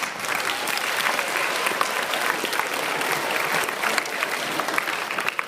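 An audience of students clapping, a steady applause of many hands.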